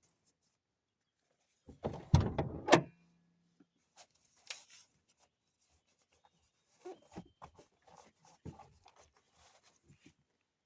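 A van door being worked: a loud scraping run with two sharp thuds about two seconds in, followed by scattered faint clicks and rustles of handling.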